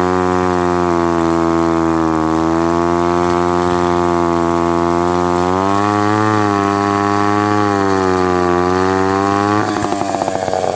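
Mid-1950s Lombard 35 gear-drive chainsaw engine running under load while cutting seasoned maple. Its pitch sags and recovers several times as it works through the wood, and the sound turns rough and uneven near the end.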